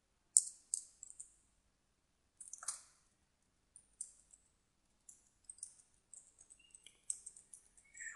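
Keystrokes on a computer keyboard as text is typed: faint, irregular clicking in short runs.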